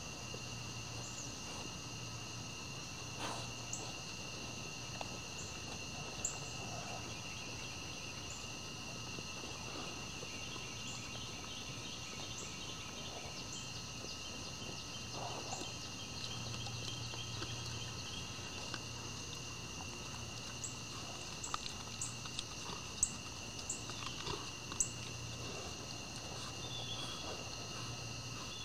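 Steady chorus of crickets and other night insects trilling. Scattered short clicks and knocks break through it, several sharper ones in the last third, as deer feed from plastic bowls.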